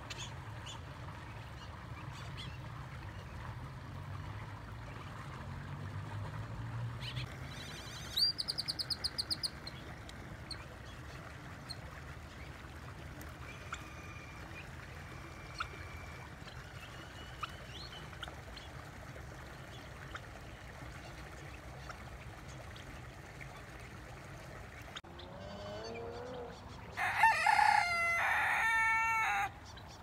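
A young cockerel crowing once near the end, a drawn-out crow of about three seconds from a bird not yet a full rooster. A short, fast run of clicks comes about eight seconds in.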